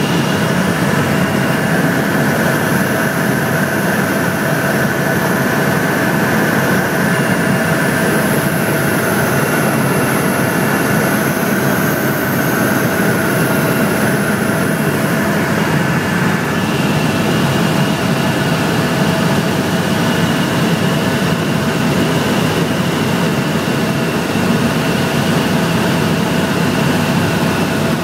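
Helicopter in flight: steady engine and rotor noise, a dense rumble with a constant high whine over it.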